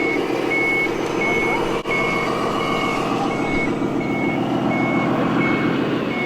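Reversing beeper of a radio-controlled truck, short even beeps about every 0.7 s over a steady engine-like drone.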